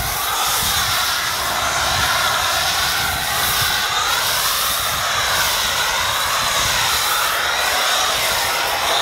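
Pressure-washer foam cannon spraying car shampoo foam onto a car: a steady, loud hissing spray that wavers in pitch as the spray moves across the bodywork.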